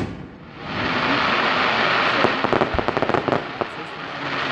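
Fireworks display: a loud bang fades away at the start, then a dense hiss builds up about a second in, with a quick run of crackling pops in the middle.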